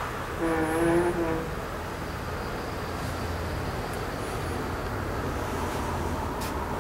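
A house front door being opened, with a short creak about half a second in, followed by steady outdoor background noise with a low rumble.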